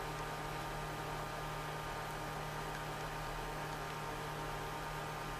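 Steady electrical hum with a faint even hiss, unchanging throughout.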